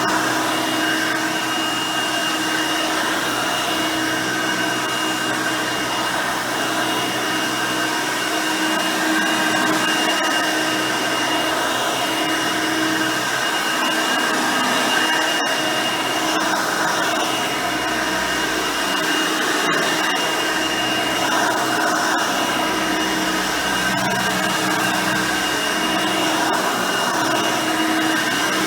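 Hoover Elite High Performance upright vacuum running steadily while vacuuming, its 5-amp motor and 9-blade fan giving a constant high whine over a low hum.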